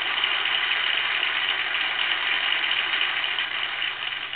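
Toy record player playing a small record: a steady hiss of needle surface noise over a low hum, with no music audible.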